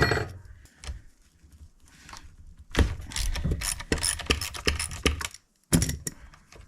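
Ratchet wrench with a 13 mm socket clicking in a rapid run as a chainsaw's bar nuts are loosened. There is a knock right at the start and a short burst of clicks near the end.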